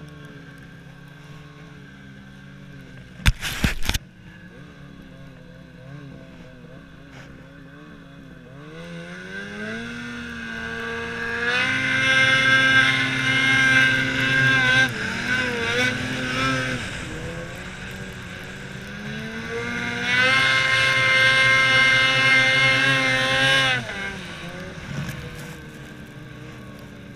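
Snowmobile engine revving hard while the sled ploughs through deep powder. Its pitch climbs to a high, held rev twice, once about a third of the way in and again about two-thirds in, easing off between the two and dropping back near the end. A short, loud crackling thump comes a few seconds in.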